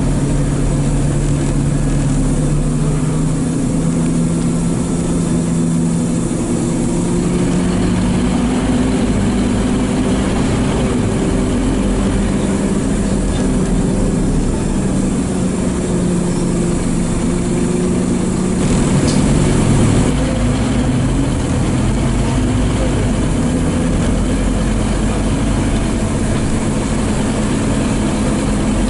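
Scania N230UD OmniCity double-decker bus heard from the lower deck while it drives: its five-cylinder diesel engine runs steadily, the note rising and falling with the driving. A short burst of hissing comes about 19 seconds in.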